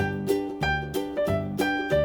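Instrumental children's music starting suddenly: a bouncy tune of struck or plucked notes, about three a second, over a repeating bass, with no singing.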